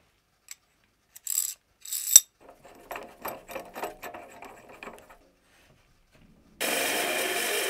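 Sharp metallic clicks and a run of light knocking and rattling as a metal-cutting bandsaw is set up to cut a steel leadscrew spindle to length. About six and a half seconds in, the bandsaw switches on and runs steadily.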